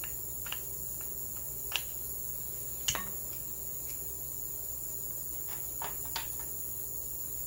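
A handful of small, sharp metal clicks and taps as a screw is backed out of the steel forend iron of an Iver Johnson Champion shotgun with a screwdriver and the small parts are handled, the loudest click about three seconds in. Under them runs a steady high-pitched whine.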